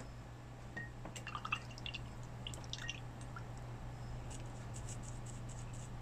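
Small, faint clicks and taps of paint jars and a paintbrush being handled on a table, clustered about one to three seconds in, over a low steady hum.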